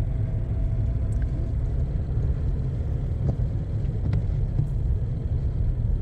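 Steady low rumble of a car's engine and tyres on a snow-covered road, heard from inside the cabin.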